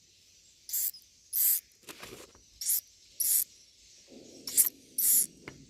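Newly hatched edible-nest swiftlet chicks giving short, high-pitched cheeps, about seven soft 'cit' calls with gaps between them. A low rustle joins in for the last second and a half.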